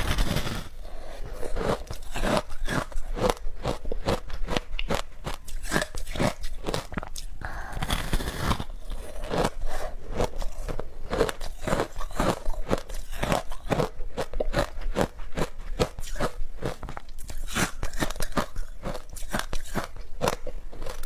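Close-miked biting and chewing of a packed ball of shaved ice soaked in passion fruit pulp: quick crisp crunches, several a second. A bigger bite into the ice ball comes at the start, and another about eight seconds in.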